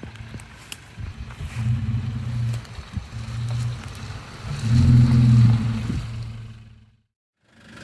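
Toyota Tacoma pickup's engine running in short throttle surges as it crawls along a muddy off-road trail. It is loudest as the truck passes close by about five seconds in, then fades out near the end.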